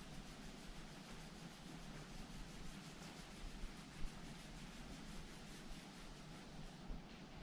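Faint, steady rubbing and scrubbing as Glock 19 pistol parts are cleaned, with a light click about four seconds in.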